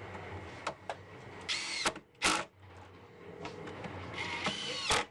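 A cordless power drill runs in two short bursts, each winding up to speed and holding briefly. A loud, sharp noise follows each burst.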